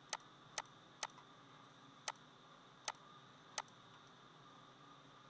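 Computer mouse clicking six times in irregular succession, sharp single clicks about half a second to a second apart, over a faint steady hiss, as checkboxes are ticked one by one.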